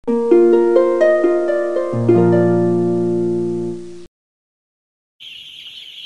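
A short intro jingle of plucked, harp-like notes climbing upward over a low held bass note, cutting off about four seconds in. After a moment of silence, the steady dense peeping of many young broiler chicks starts near the end.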